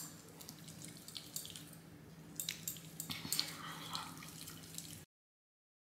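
Faint soft, wet-sounding rubbing and small clicks of hands massaging an oil cleansing balm into the face to melt off makeup, over a low steady hum. The sound cuts off suddenly about five seconds in.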